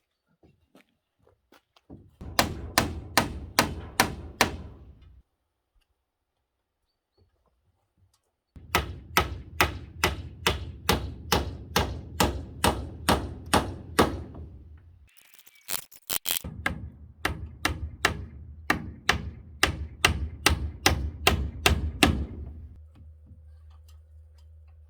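Hammer blows on timber in three quick runs, about three or four evenly spaced strikes a second, with short pauses between the runs. A faint steady low hum follows near the end.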